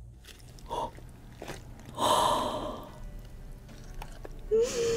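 Close-miked mukbang eating sounds: chewing and small mouth noises, with a loud noisy burst about two seconds in. Near the end the eater gives a short hummed "mm" that rises and then falls.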